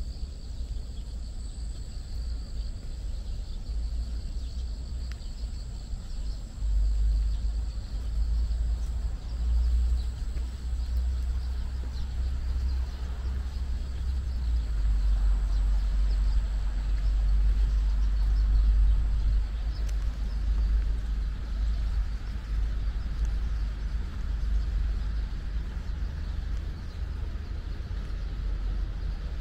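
Wind buffeting the microphone: an uneven deep rumble that swells in gusts, strongest from about seven to nineteen seconds in, over a steady high-pitched insect trill.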